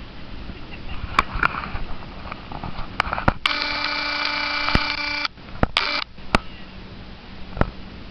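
A Fujifilm compact digital camera's lens zoom motor whines steadily for about two seconds as the lens zooms in, then gives a short second whine, with scattered sharp clicks from the lens mechanism and handling.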